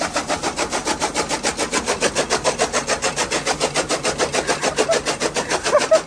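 Motor-driven chaff cutter (toka) running, its flywheel blades chopping fodder in a rapid, even clatter of about seven beats a second.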